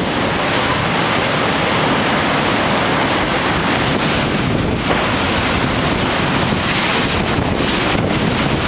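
Strong storm wind and driving rain, a loud, steady rush with gusts buffeting the microphone. It is a windstorm violent enough to bring down trees, which the filmer calls a tornado.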